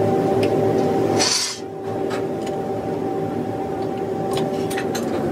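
Steady machine hum broken a little over a second in by a short hiss, after which the hum drops and quieter running goes on. Scattered light metal clinks come from clamps and tools being handled on a round metal forming table.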